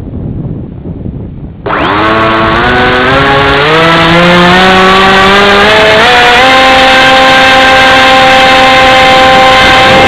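Wind buffeting the microphone, then, a little under two seconds in, the Radjet 800's brushless electric motor and pusher propeller start up right beside the microphone. Its whine climbs in pitch in steps, then holds steady at high throttle for launch.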